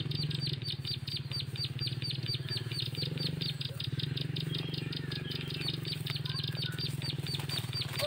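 Ciblek (prinia) lure call: short, high chirping notes repeated evenly, about seven a second, over a steady low hum.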